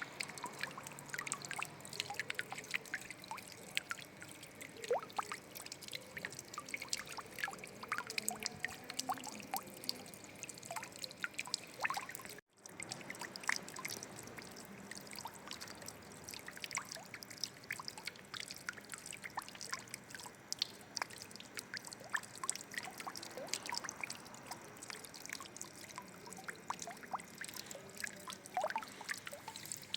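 Water trickling and dripping: a continuous, irregular patter of small drops and splashes. The sound cuts out for an instant a little before halfway.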